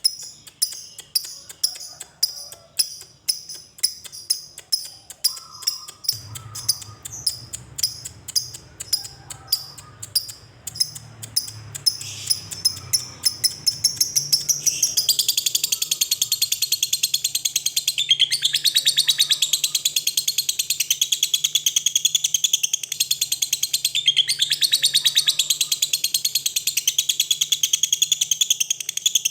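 Lovebird calling: sharp single chirps a couple of times a second that quicken, then, about fifteen seconds in, a long continuous rapid chattering trill, the 'ngekek' of a fighter-type lovebird.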